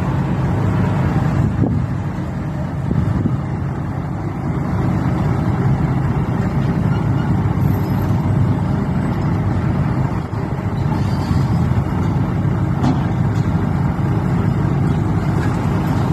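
A heavy engine running steadily at a constant speed, typical of construction machinery working on a building site.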